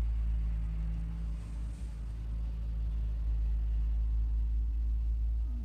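Steady low rumble of a car's engine and running gear heard inside the cabin, with a faint steady hum that fades out about two seconds in.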